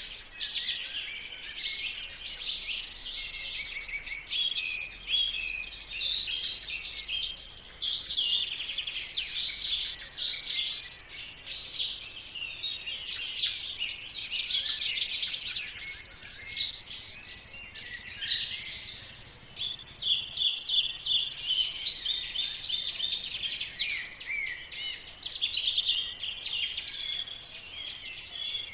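Many songbirds singing at once in a continuous morning chorus of overlapping high chirps and trills.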